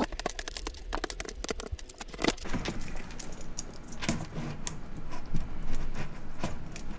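Quick clicks and taps of the plastic keys of a Topre keyboard (Cooler Master Novatouch TKL) fitted with silencing rings, being pressed and handled. The clicks come thick and fast at first, then thin out, with one louder click about two seconds in.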